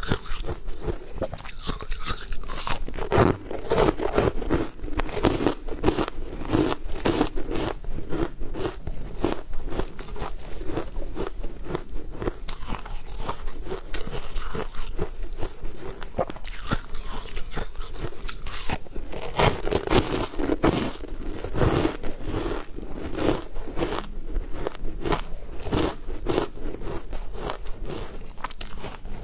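Close-miked biting and chewing of hard, frosty purple balls: many sharp crunches in quick succession.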